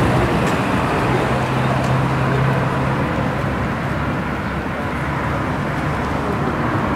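Steady outdoor road-traffic noise, with a low vehicle engine hum for a couple of seconds about a second in.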